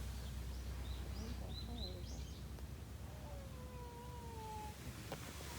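Birds chirping: a quick run of short, high chirps in the first couple of seconds, then a faint drawn-out tone, over a steady low background rumble.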